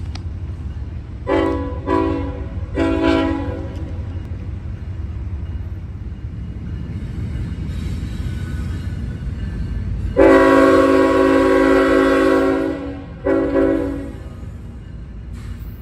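CSX freight locomotive's air horn giving a hornshow at a grade crossing: three short blasts in quick succession about a second in, then a long blast and one short blast near the end, each sounding several notes at once. A steady low rumble runs beneath.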